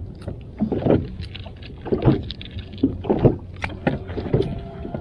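Irregular knocks, rustles and sloshing of water as a freshly landed largemouth bass is handled on the boat, with louder clunks about a second, two seconds and three seconds in.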